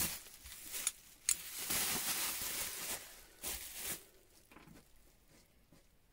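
Bubble wrap rustling and crinkling as an old adjustable wrench is pulled out of it, with a couple of sharp crackles about a second in. The rustling stops about four seconds in.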